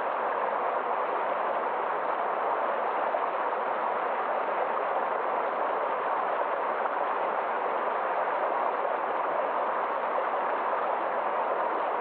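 Water of a forest stream running steadily: an even, unbroken rush and murmur of flowing water.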